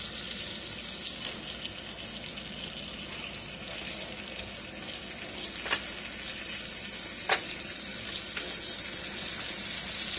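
T-bone steak frying in black truffle butter in a hot pan: a steady sizzle that grows a little louder about halfway through, with two sharp pops.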